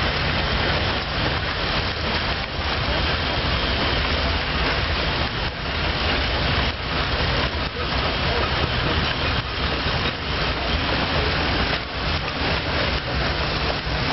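Houston, Stanwood & Gamble stationary steam engine running, with a steady hiss of escaping steam over a low rumble.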